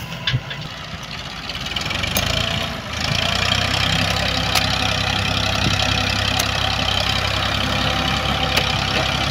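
Heavy vehicle engine running steadily, getting louder about three seconds in, with a few light clicks and knocks.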